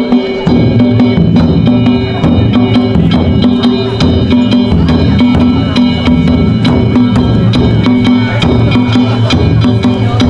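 Danjiri bayashi festival music: taiko drums and small hand gongs (kane) struck in a quick, steady beat, the gongs ringing on continuously over the drums.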